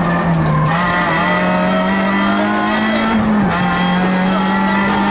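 Citroën Saxo VTS rally car's four-cylinder engine running hard at high revs, heard from inside the cabin. The pitch climbs steadily under acceleration, with a brief dip in revs a little after three seconds in before it picks up again.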